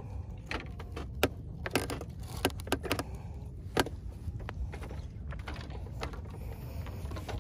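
Scattered sharp clicks and taps of hands handling fishing line and gear on a bamboo platform, denser in the first few seconds, over a steady low rumble.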